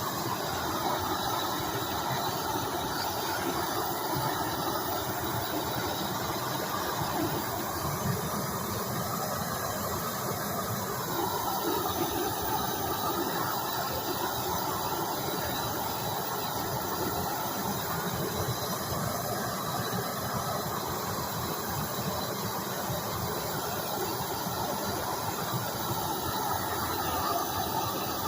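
Gas torch flame burning steadily with a continuous hiss and a faint whistle, unbroken throughout.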